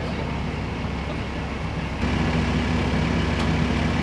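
Fire trucks' engines idling: a steady low rumble that gets louder about halfway through.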